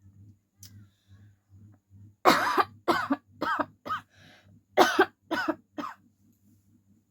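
A person coughing in two fits, four coughs and then three, in quick succession.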